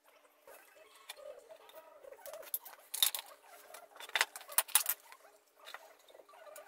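Small metal clicks and scraping of a wrench on the spark plug of a McCulloch Pro Mac 700 chainsaw as the plug is worked loose, with a run of sharp clicks in the middle.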